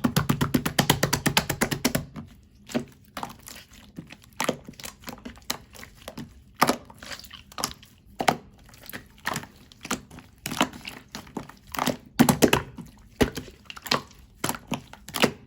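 Slime being squeezed and pressed by hand, making a quick run of clicking pops for about two seconds, then scattered pops and squelches.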